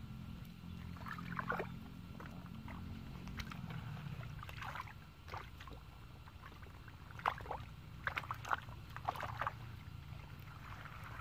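Hands splashing and scooping through a shallow muddy puddle: irregular short splashes, the loudest coming close together in the second half.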